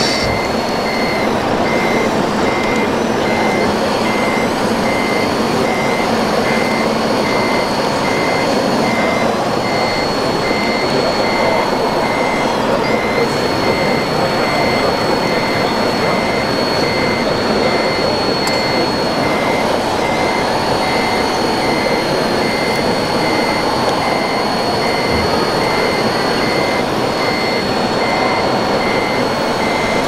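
Back-up alarm beeping steadily, about one and a half beeps a second, over the high whine and dense rushing hum of a 1/14-scale RC hydraulic excavator and articulated dump truck working. The high whine dips briefly now and then as the machines are loaded.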